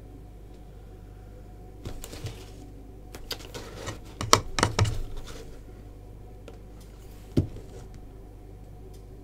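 A clatter of light clicks and knocks as a paintbrush is worked against pots and a palette on a cluttered paint table, busiest about four to five seconds in, then one more knock near the end. A steady low hum runs underneath.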